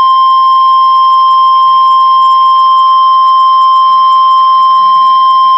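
NOAA Weather Radio's 1050 Hz warning alarm tone: one loud, steady, unbroken tone, sounded to herald a severe thunderstorm warning that is about to be read.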